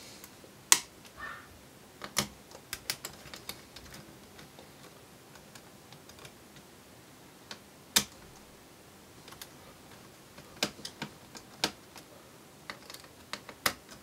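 Small Phillips screwdriver undoing a laptop heatsink's four retaining screws: scattered light clicks and ticks, the sharpest about halfway through, with a quick run of clicks near the end.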